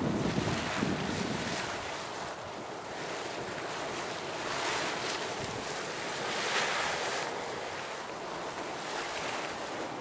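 Waterfall Geyser's boiling water splashing and surging in its steaming pool, swelling louder twice in the middle, with wind buffeting the microphone.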